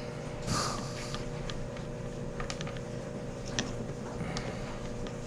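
A short sniff or breath about half a second in, then a few faint, sharp clicks of small metal engine parts being handled, over a steady low hum.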